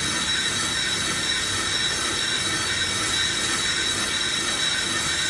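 Brake lathe turning a Toyota Avanza brake disc, the cutting tool scraping the spinning disc with a steady high-pitched metallic squeal. The disc is being resurfaced because it is badly warped: dark patches the tool has not yet reached still show.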